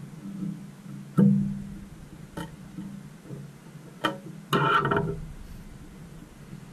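Taut fly-tying thread twanging like a plucked string as a whip finish is turned on the fly's head with a whip-finish tool: a sudden twang about a second in that fades, a click, and a shorter ringing twang about four and a half seconds in.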